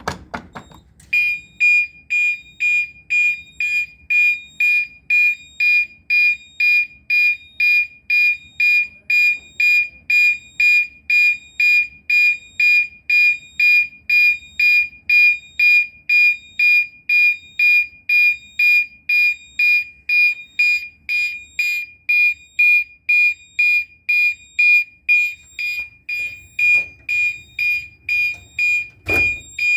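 Gentex Commander 3 (GEC3-24WW) fire alarm horn sounding a steady 2400 Hz tone that the panel codes to March time, pulsing about twice a second. It starts about a second in, after a sharp click.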